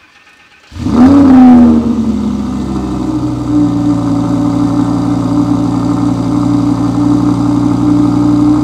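Audi R8's 5.2-litre V10 breathing through a GMG WC-Sport exhaust starts up: a loud flare of revs under a second in that rises and falls, then it settles into a steady idle.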